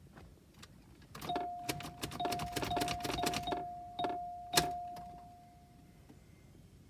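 A Cadillac Allante turned to start but not cranking: about a dozen irregular clicks over some three seconds, with a steady electronic chime tone that runs through them and fades out after the last click. It is a no-start with a freshly fitted starter on a weak battery that is running on a booster.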